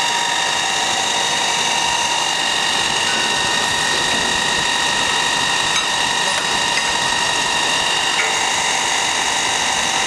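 MSI ChamferMate chamfering machine running, a steady whine made of several constant tones over an even mechanical noise, with a couple of faint clicks.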